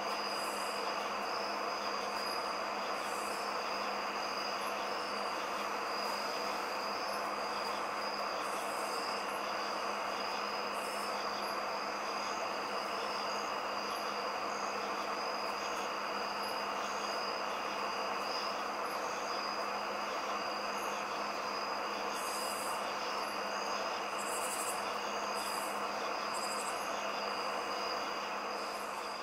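Chorus of night-singing insects: a steady high-pitched trill over a dense continuous hum of calling insects, with short higher buzzy calls recurring every second or two.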